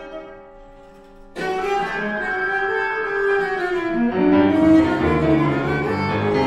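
Cello and grand piano improvising in free contemporary style: a held chord fades away, then about a second and a half in both come in loudly together, the cello bowed hard in shifting, dense pitches over the piano.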